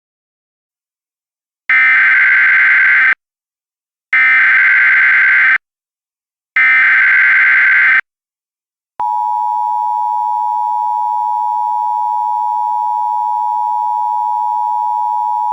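Emergency Alert System tones: three short, identical bursts of SAME header data, each about a second and a half with brief gaps, then about nine seconds in the steady two-tone EAS attention signal begins and holds.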